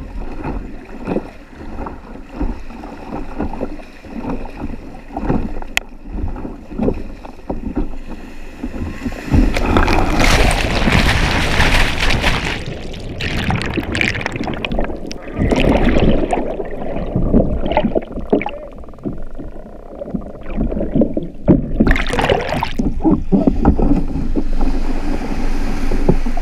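Kayak paddle strokes splashing in choppy sea, then about ten seconds in a breaking wave crashes over and capsizes the sit-on-top kayak: a loud rush of water, then muffled churning water while the camera is under. Near the end, more splashing and surf washing around the kayak in the shallows.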